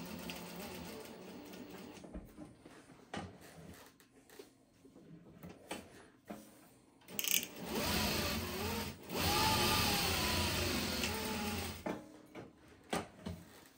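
Juki DDL-8700 single-needle lockstitch industrial sewing machine, driven by a servo motor, stitching in short runs. Its whir rises and falls in pitch as it starts and stops. Quieter gaps with scattered clicks fall between the runs as the fabric is repositioned.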